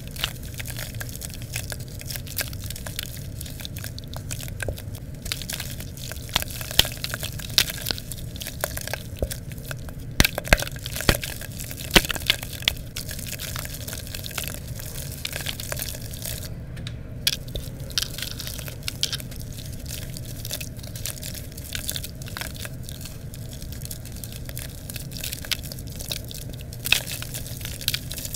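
Soaked red dirt and charcoal bricks squeezed and crumbled by hand in water: gritty wet crunching and crackling, thick with small sharp cracks. The sharpest cracks come about six to thirteen seconds in.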